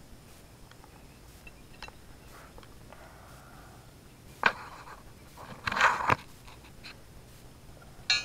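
Handling noises from tools and hardware on the steel hitch mount: a few sharp clicks and a short scrape just after the middle.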